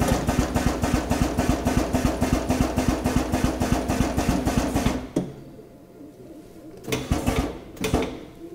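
Powered drum tipper's rotation drive running with a fast, even pulsing as it turns the drum back upright, stopping about five seconds in. Two short bursts of the drive follow near the end.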